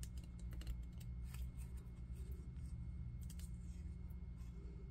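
Small pointed craft scissors snipping around a paper flower cutout: a run of short, quiet snips at uneven intervals, over a low steady hum.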